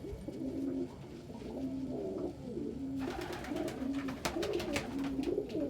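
Domestic pigeons cooing, several low warbling coos repeating and overlapping, with a few short sharp clicks midway.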